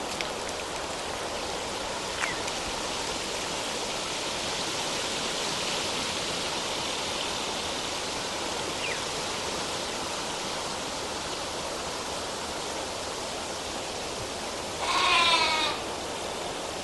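Steady hiss of open-air background ambience. Near the end, a sheep bleats once with a wavering call lasting under a second.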